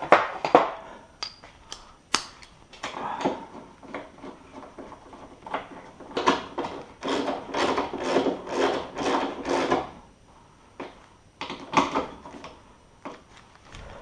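Hand tools and metal parts being handled on a workbench: scattered sharp clicks and knocks, with a run of quick, evenly repeated strokes from about six to ten seconds in.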